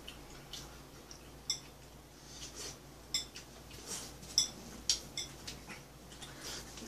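Chopsticks and spoons clinking against bowls and plates now and then, in sharp separate clicks. They come closer together around four to five seconds in.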